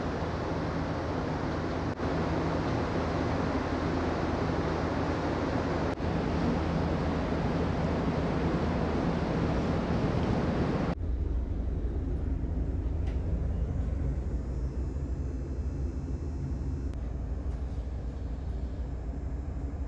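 Steady low drone of the Pan Star Dream ferry's engines under a rush of wind and water noise. About eleven seconds in, the rushing noise cuts off abruptly, leaving the engine drone alone and muffled.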